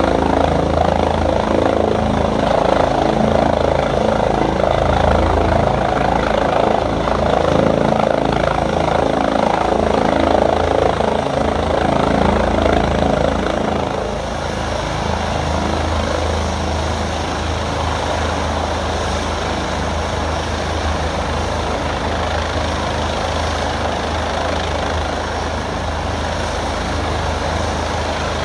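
Medical helicopter landing on a rooftop helipad, its turbine engine and rotor running loudly. About halfway through the sound drops a little and a high thin whine fades away, while the rotor keeps turning with a steady low rumble.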